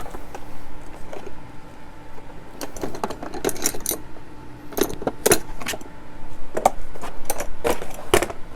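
Small metal hand tools clinking and jangling against each other as they are rummaged through, a scatter of sharp clicks and rattles.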